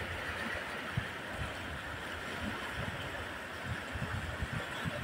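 Fast, churning muddy floodwater rushing and splashing, with wind buffeting the microphone in low rumbles and a short knock about a second in.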